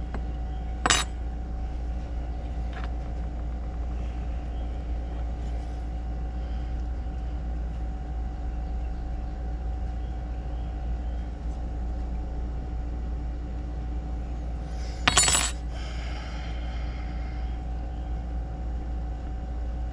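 Small metal parts of an ignition module being handled on a wooden workbench: two sharp metallic clinks, about a second in and again near fifteen seconds, the second one ringing briefly, over a steady low hum.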